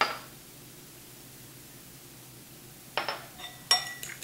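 A fork clinking against a bowl: one sharp click at the start, then quiet, then two ringing clinks about three seconds in, and quick repeated clinks near the end as the fork starts stirring.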